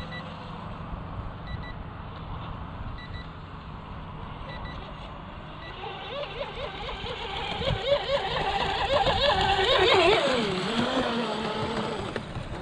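Electric RC speedboat's motor whining across the water, its pitch wavering rapidly as the boat skips over the chop. It grows louder from about halfway in, then its pitch drops sharply near the end. A low rumble runs underneath, with faint short beeps about every second and a half in the first half.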